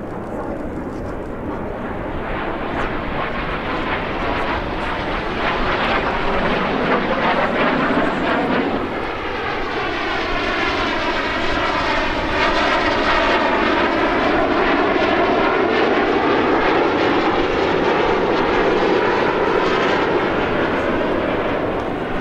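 Canadair CT-114 Tutor jets flying past with their single J85 turbojets. The jet noise builds over the first several seconds and stays strong. In the middle it takes on a whooshing tone that sweeps down and back up as a jet passes, then eases slightly near the end.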